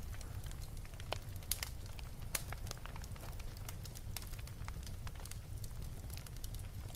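Wood fire crackling in a fireplace: frequent irregular sharp pops over a steady low rumble.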